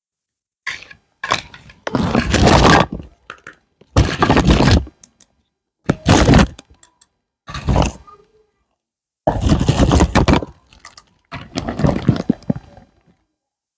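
Toy playset packaging being opened and handled: repeated bursts of scraping and crackling from plastic and cardboard, some short, some about a second long, with dead silence between them.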